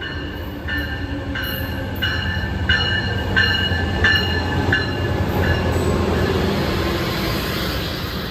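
Arriving Amtrak Pacific Surfliner train led by a Siemens Charger diesel locomotive: its bell rings about every 0.7 s and fades out after about five and a half seconds as the locomotive passes. A low steady rumble of the engine and wheels runs under it, giving way to rolling and hissing noise from the passing bilevel cars.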